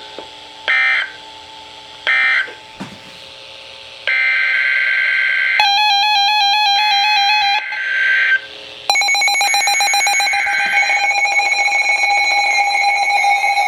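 Emergency Alert System tones. Two short data bursts about 1.4 s apart end one alert. About four seconds of buzzing, warbling data tones follow, and from about nine seconds in the steady two-tone EAS attention signal of the next alert sounds.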